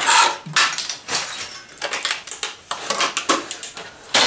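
Clatter and crunching of a boombox's circuit boards and loose metal and plastic parts being handled and knocked on a wooden workbench: a string of sharp, irregular knocks and rattles, the loudest right at the start.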